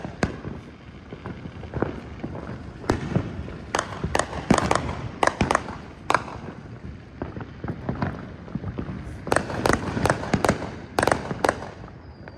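Neighbourhood fireworks going off all around: many sharp bangs and pops at irregular intervals, thickest a few seconds in and again near the end, over a steady background of distant crackling.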